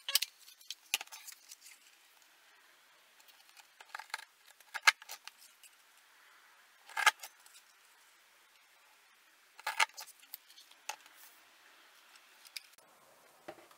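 White plastic fringe paper punch pressed down on a strip of cardstock, clacking sharply as it cuts the fringe. The clacks come singly or in short clusters, a second or more apart, with quiet paper handling between them.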